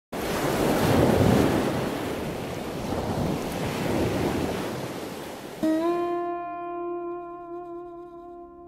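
Wind rushing and buffeting the microphone for about six seconds, then fading out. About five and a half seconds in, a plucked acoustic guitar note starts the background music and rings on.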